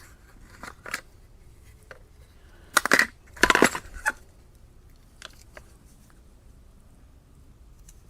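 Small electronic parts being rummaged through by hand: a few light clicks, then two loud bursts of rustling and clattering about three seconds in.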